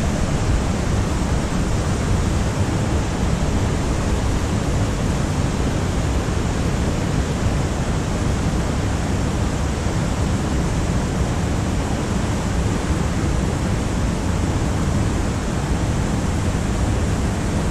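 Fast river water rushing over rocks and rapids: a steady, unbroken rushing noise.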